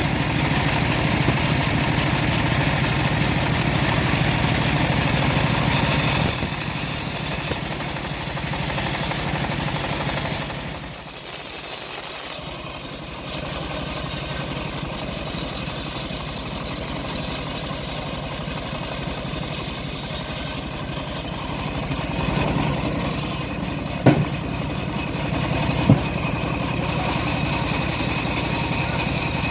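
Stihl MS381 two-stroke chainsaw running steadily, its level and pitch shifting as it works. The sound drops for a couple of seconds about ten seconds in, and two sharp knocks come near the end.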